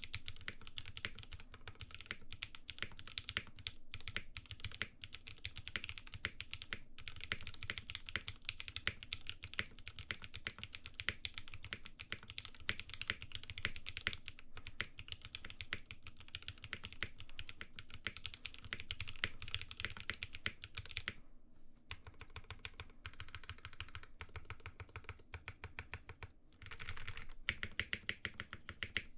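Rapid, continuous typing on a Geonworks Frog TKL custom mechanical keyboard with linear switches and GMK keycaps: a dense stream of key strokes. The typing stops briefly about two-thirds of the way in, then goes on more lightly before picking up again.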